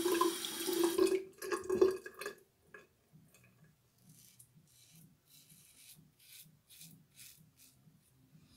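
A tap running into the sink stops about a second in, with a few drips and splashes after. Then a RazoRock Gamechanger .68-P double-edge safety razor scrapes through the lather on the cheek and neck in a series of short, faint strokes.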